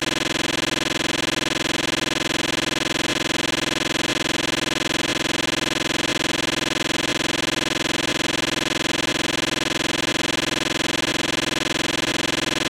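A steady, unchanging electronic drone made of many tones at once, with faint ticks about once a second.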